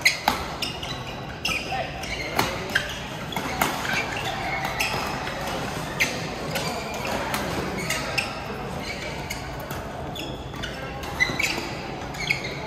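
Badminton rally in a large hall: sharp racket strikes on the shuttlecock at irregular intervals, with shoes squeaking on the court floor between shots.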